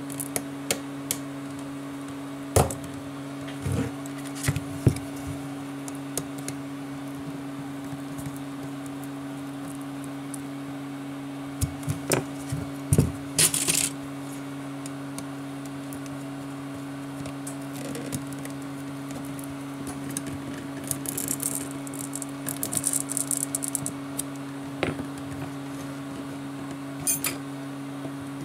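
Scattered clicks, taps and light scraping as an Asus Nexus 7 tablet is prised apart by hand with a metal pry tool, coming in a few clusters, over a steady low hum.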